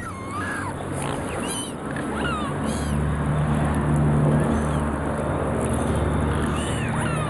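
Gulls calling in short rising-and-falling cries over a flock of waterbirds on the water. From about two seconds in, a steady low motor drone joins underneath.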